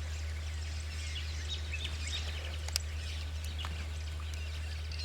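Scattered chirps of several birds calling over a steady low hum, with one sharp click nearly three seconds in.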